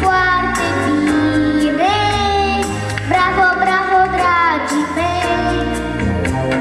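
A young girl singing into a microphone over backing music with a steady bass beat; her notes slide up into each line.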